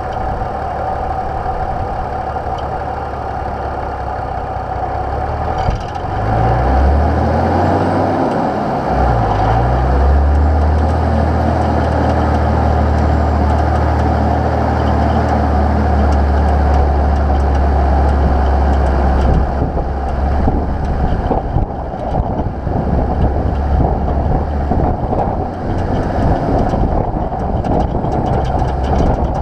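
Nissan GU Patrol's TD42 straight-six diesel engine running as the four-wheel drive is driven along a sandy dune track. The engine note dips and rises about seven to nine seconds in, holds a steady low drone for about ten seconds, then turns uneven over the rougher going.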